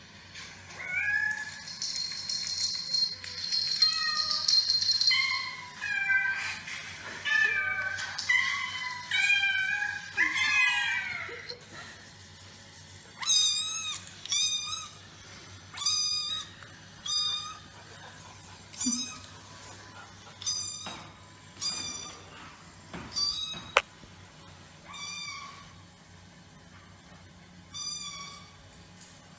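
Chow chow puppy whining: a long series of short, high-pitched cries, crowded together in the first half and then coming about once a second.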